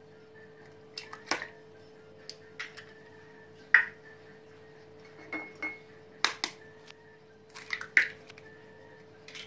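Metal spoon tapping eggshells to crack them over a ceramic mixing bowl: short groups of sharp clicks and clinks every second or two, the loudest about four seconds in.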